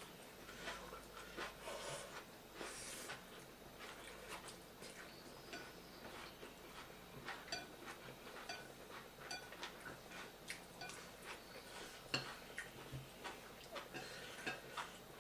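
Close-up eating sounds: chewing and small mouth noises with light clicks of cutlery against a plate, scattered short ticks throughout and one sharper click about twelve seconds in.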